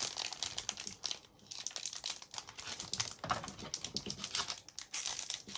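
Foil wrappers of hockey trading-card packs crinkling in many quick, irregular crackles as the packs are handled and opened.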